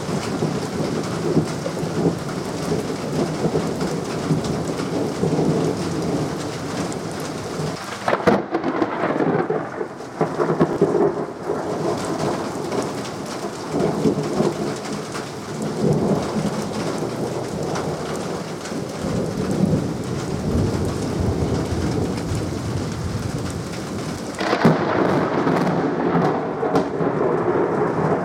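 Thunderstorm: rain falling with repeated rolling rumbles of thunder. A sharp thunder crack comes about eight seconds in; after it the rain hiss eases, then comes back heavier near the end.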